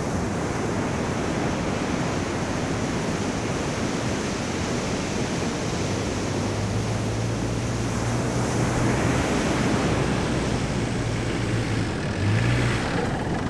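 Steady rush of surf. About halfway through, the low, steady drone of a Mitsubishi Delica 4x4 van's engine comes in and grows louder as the van drives toward the listener along the soft sand, strongest near the end.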